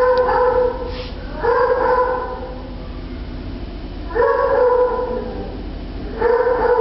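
An animal crying four times, each cry long and held at one steady pitch.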